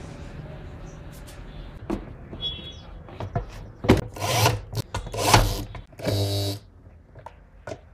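Cordless drill/driver running in three short bursts as it turns a bolt in a scooter's plastic under-seat storage bin, after a few seconds of scattered clicks and knocks from handling.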